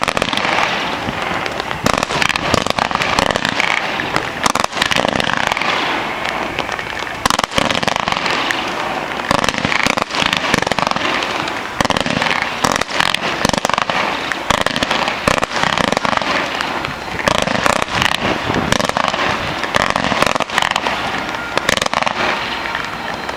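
Fireworks going off without pause: a dense, continuous crackle of bursting stars, cut by many sharp pops and bangs.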